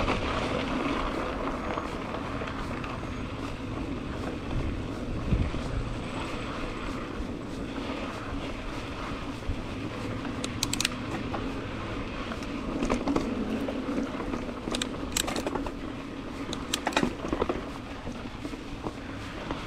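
Mountain bike ridden along a dirt trail: a steady rolling noise, broken by sharp clicks and rattles over bumps, in a cluster about halfway through and again near the end.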